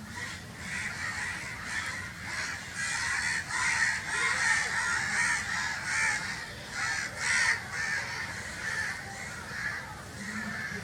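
Crows cawing: a rapid, unbroken run of harsh caws, thickest and loudest through the middle.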